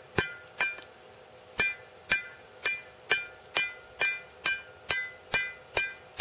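Hand hammer striking hot railroad-spike steel forced down over an old axe head on an anvil, about a dozen ringing metal-on-metal blows. Two blows come first, then a pause of about a second, then a steady run of about two a second. The blows are wedging the split cuts open to spread the arms of a forged cross.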